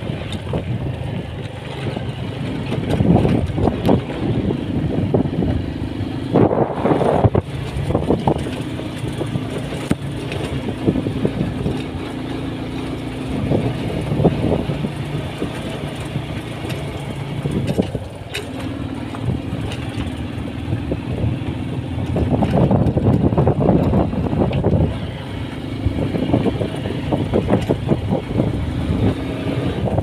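A vehicle's engine running under way, its steady low tone shifting pitch a few times, beneath road rumble and wind noise that swell about seven seconds in and again past twenty-two seconds.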